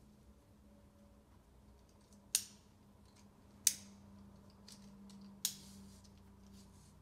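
Three sharp clicks a second or two apart, each trailing off briefly: the plastic buckles and webbing of a roll-up stretcher's restraint straps being closed and pulled tight.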